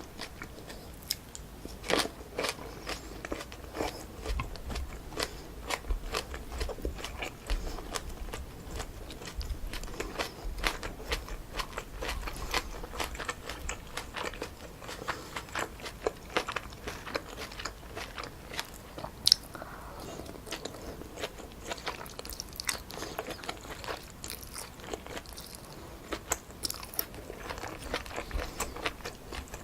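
Close-miked chewing and mouth sounds of someone eating stir-fried wide glass noodles with pork and vegetables: a steady run of short, irregular wet clicks and smacks.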